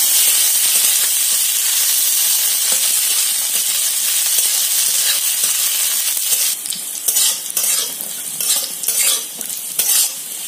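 Cashews and raisins sizzling in ghee in a shallow metal kadai while a metal spatula stirs them. The steady sizzle gives way after about six seconds to a run of scraping stirring strokes, about two a second.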